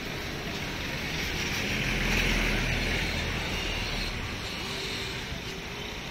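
Street traffic: engines of passing trucks and scooters with tyre noise, swelling to its loudest about two seconds in and easing off after.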